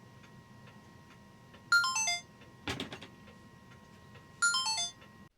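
A clock ticking faintly and steadily, broken twice by a quick descending run of five or six bright ringing notes that sounds like a ringtone. There is a sharp click between the two runs.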